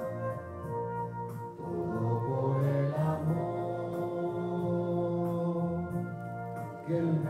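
A slow hymn sung to instrumental accompaniment, its notes held long and changing every second or two.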